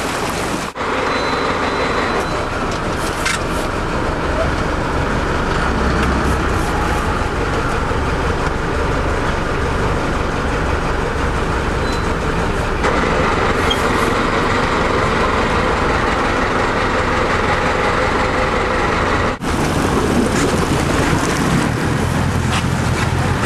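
Sportfishing boat under way: a steady engine rumble mixed with rushing water and wind noise, cut off briefly twice.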